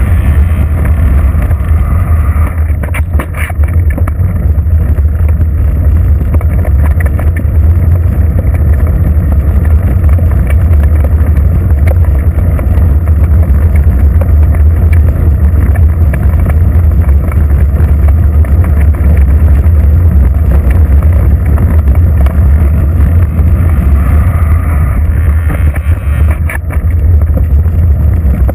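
Steady low rumble of wind buffeting and road noise picked up by a bicycle-mounted GoPro while riding, with a couple of brief knocks about three seconds in and near the end.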